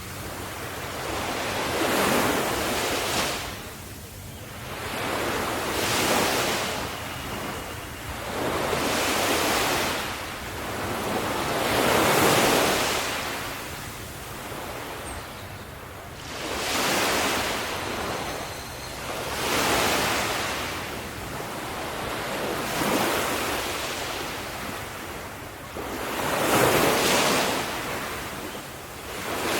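Ocean waves breaking on a shore, each surge of surf swelling into a hiss and washing out again, about every three to four seconds.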